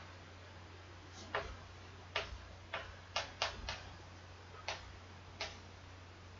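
Chalk on a chalkboard: about nine short, irregular taps and strokes.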